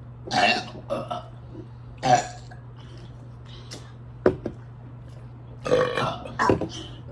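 Several people's burps one after another, about five short burps, with one sharp click about four seconds in, over a steady low hum.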